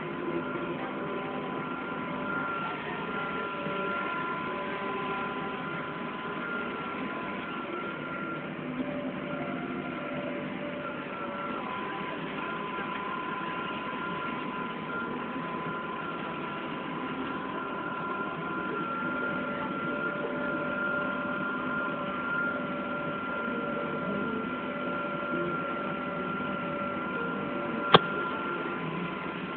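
Case IH MX200 tractor's six-cylinder diesel engine running steadily under way, heard from inside the cab, with a steady high whine over the engine noise. A single sharp click about a second before the end.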